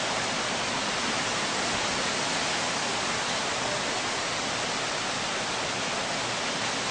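Steady, even hiss of rain falling during a tornado-producing thunderstorm.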